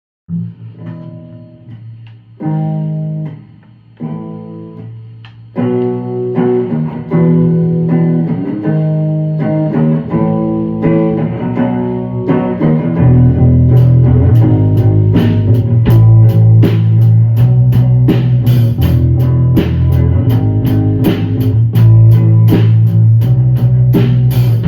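A rock band's demo instrumental intro. Guitar chords start out alone, ringing out one at a time, then give way to busier guitar and bass playing. Drums and cymbals come in about halfway through and keep a steady beat under the full band.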